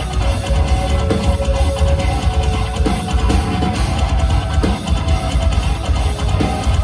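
Metalcore band playing live at full volume: heavy distorted guitars over a drum kit, dense and steady throughout, heard from within the crowd.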